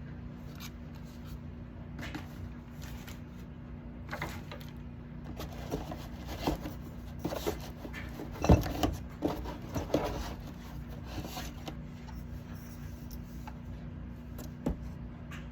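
Parts and packaging being handled while unboxing a metal detector: scattered clicks, knocks and scrapes, the loudest a sharp knock about eight and a half seconds in, over a steady low hum.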